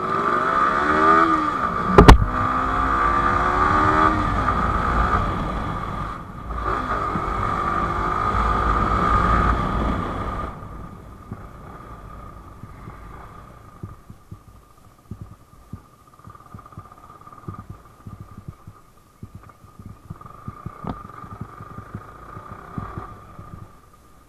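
Yamaha R15 V4's 155 cc single-cylinder engine accelerating hard through the gears, its pitch rising in several sweeps, with one sharp knock about two seconds in. After about ten seconds the throttle closes and the engine goes much quieter as the bike slows, with scattered small knocks over its low running.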